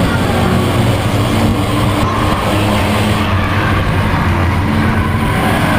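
Chevrolet Beretta Eco Stock race car's engine running steadily under racing load at a near-constant pitch, heard from inside the car with road and tyre noise.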